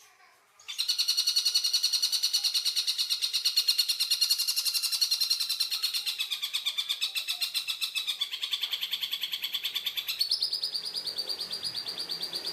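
Tengkek buto song: a long, fast rattling trill of harsh repeated notes, roughly ten a second, starting just under a second in. About ten seconds in, the notes shift to a higher, thinner pitch.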